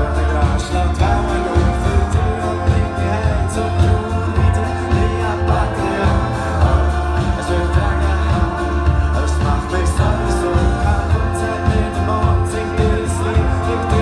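Live band music with singing over a strong bass line and regular drum hits.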